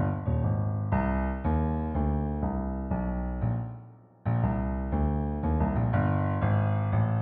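Piano playing a slow run of chords, a new chord about every half second. The sound dies away about four seconds in, then the chords start again.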